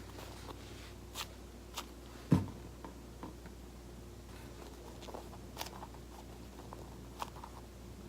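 Faint handling noises: a few light clicks and taps, with one louder knock about two seconds in, over a steady low hum.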